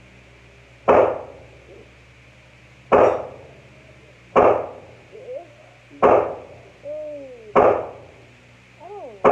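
AR-15 pistol firing single shots, six in all, one to two seconds apart, each crack followed by a short reverberant tail. Short gliding cries sound in the gaps between the later shots.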